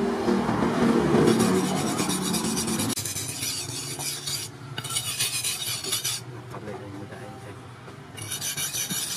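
Steel knife blade being sharpened on a whetstone: rasping strokes of the blade scraped back and forth across the stone. The strokes ease off for about two seconds late on, then start again near the end.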